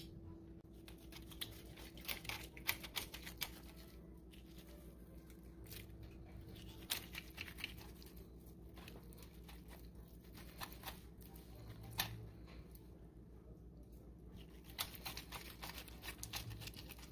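A fork and utensil pulling apart a roast pork shoulder on a foil-lined tray: faint clicks, scrapes and the meat tearing, with the foil crinkling, in several short clusters. A faint steady hum runs underneath.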